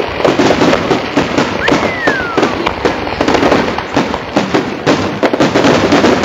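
Fireworks display: aerial shells bursting in a rapid, continuous run of bangs. A single falling whistle is heard about two seconds in.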